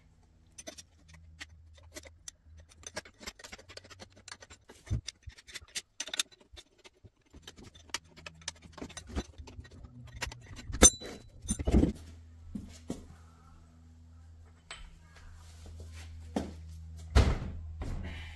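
Metal hand tools working on a snowmobile's two-stroke engine to take its starter off: a run of small metal clicks and clinks. Louder clunks come about eleven and twelve seconds in and again near the end, over a low steady hum.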